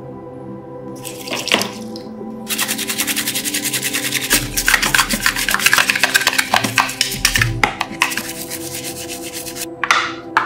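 Hand sanding: fast back-and-forth rubbing strokes, starting about two and a half seconds in and stopping near the end, over steady background music.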